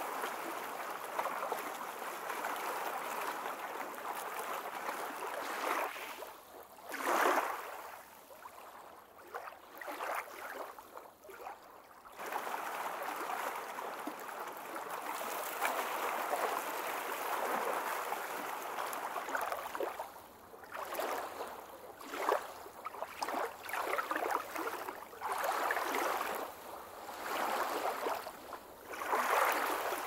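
Running water: a steady rush of flowing, gurgling water that breaks into uneven surges in the second half.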